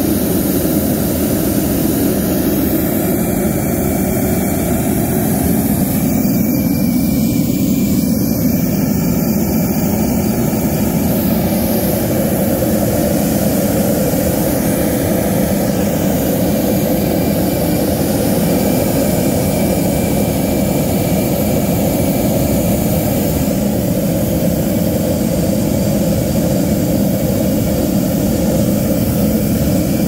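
DIY waste oil burner firing a long flame, with a steady, loud rushing noise of burning oil and forced air that holds even throughout.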